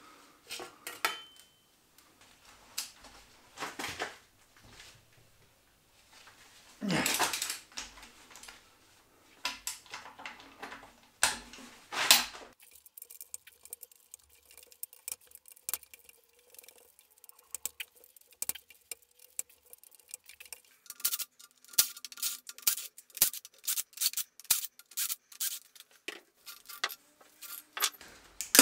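Hand tools and metal engine parts clinking and knocking during a diesel engine teardown, with scattered single knocks, a couple of longer scraping noises, and a dense run of rapid clicks near the end.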